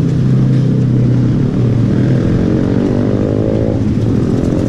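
Engine of a motor vehicle running close by on the road, a steady hum whose pitch shifts a little about two to four seconds in as it moves past.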